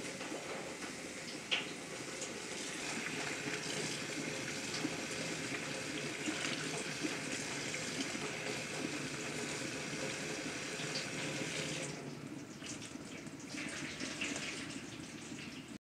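Kitchen tap running, its water splashing over raw meat chunks on a steel platter as they are rinsed by hand, with light clinks of the platter. The running water drops away about twelve seconds in.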